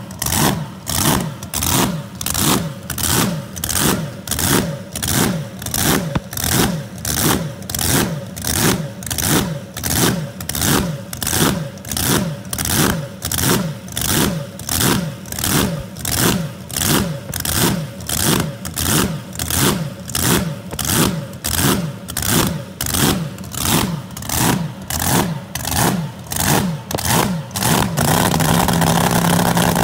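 Supercharged V8 of a blown flat-bottom drag boat idling with a rhythmic blower surge, its note swelling and falling about one and a half times a second. About two seconds before the end the surging stops and the engine settles into a steady, even, higher run.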